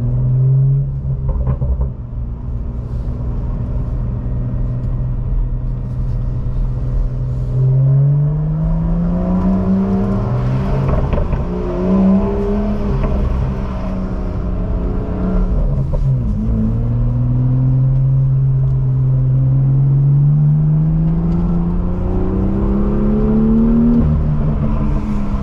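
BMW M2's turbocharged straight-six with an aftermarket exhaust, heard from inside the cabin while driving. It holds a steady note for the first several seconds, then rises, falls back sharply twice and climbs slowly to the end as the car gathers speed.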